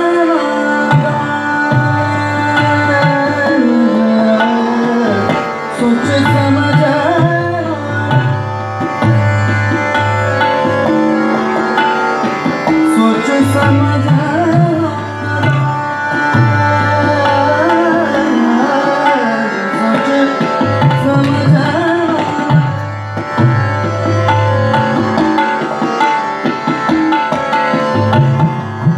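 Hindustani classical vocal music. A male voice sings gliding melodic lines over tabla, whose deep bass-drum strokes come through strongly, with harmonium accompaniment and a steady tanpura drone.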